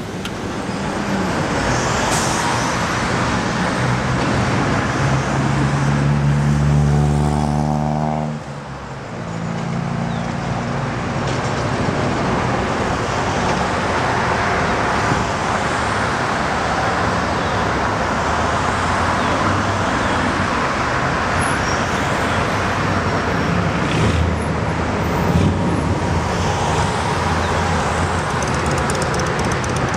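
A car engine running steadily, cutting off abruptly about eight seconds in. Then the steady rush of heavy traffic on a multi-lane expressway.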